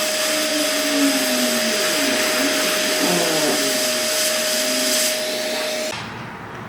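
Hot air rework station's blower running steadily, a hiss with a steady whine, as it reflows the solder joints of a laptop's USB-C charging port. It stops near the end.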